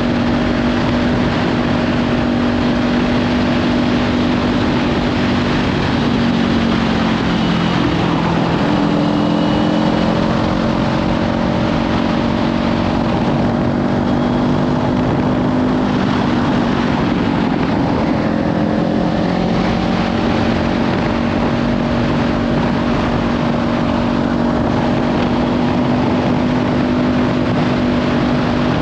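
Kawasaki Ninja 500 parallel-twin with a Leovince slip-on exhaust running under way, its pitch dipping and climbing again about a quarter of the way in and once more past the middle. Heavy wind noise on the microphone runs over the engine.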